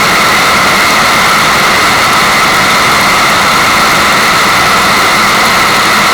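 Steady water white noise: an unbroken rushing hiss of water that does not change.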